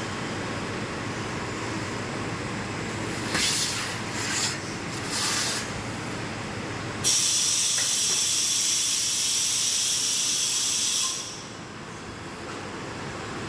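CNC bending machine running with a steady hum. Three short hisses come about three to five seconds in, then a loud, high hiss lasts about four seconds and cuts off suddenly.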